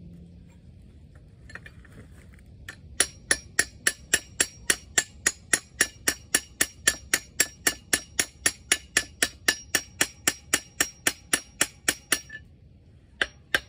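Hammer blows on a steel bar driving the stuck camshaft of a Wisconsin V4 engine, a fast, even run of ringing metal-on-metal strikes at about four a second. They start about three seconds in, stop briefly near the end, then resume.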